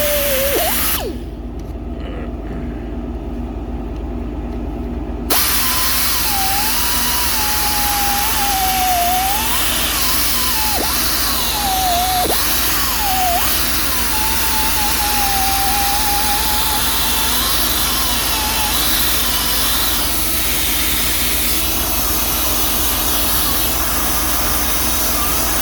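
Power tool spinning a gasket-cleaner disc against the brake caliper bracket, scouring rust out of its grooves. Its whine wavers up and down in pitch as it bites. It eases off about a second in and comes back full about five seconds in.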